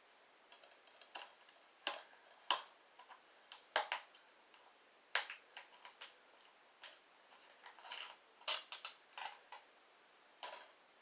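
Irregular sharp clicks and crackles of a plastic DVD case and its wrapping being picked at and handled by fingers.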